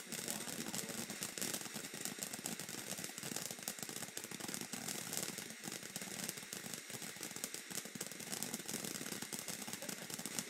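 A ground fountain firework spraying sparks: a steady hiss laced with rapid, dense crackling that keeps on evenly throughout.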